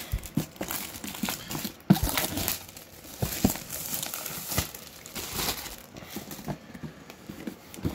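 Crinkling and tearing of wrapping as a new board game expansion box is unwrapped and opened, with a sharp knock about two seconds in.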